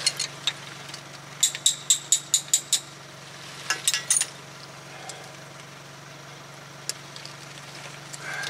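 A quick run of about seven light metallic taps with a ringing tone, then a few more a second later: a metal hand tool tapping and bending the ends of a cotter pin through a truck's front axle nut. A steady low hum runs underneath.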